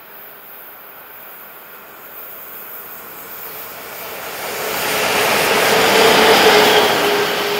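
Two SBB electric locomotives, the second an Re 6/6, heading a freight train as they approach and pass close by. A broad rushing noise with a steady humming tone in it grows louder and peaks about six seconds in as the locomotives go past.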